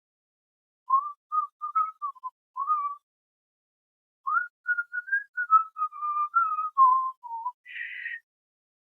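A person whistling a short, wavering tune through the lips, in two phrases of quick notes with a pause between them. Near the end the whistle gives way to a brief breathy hiss of air.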